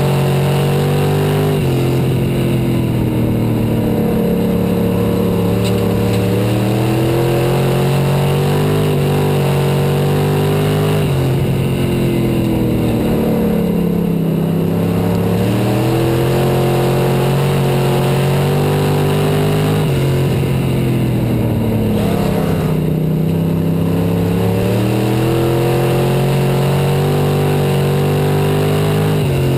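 IMCA Sport Mod dirt-track race car's V8 engine at racing speed, heard from an onboard camera. The engine note drops as the driver lifts into each turn and climbs again down each straight, about every nine seconds.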